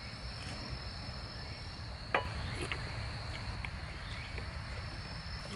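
Insects chirring steadily in a high, even band, with a few light clinks of spoons against metal bowls, the sharpest about two seconds in.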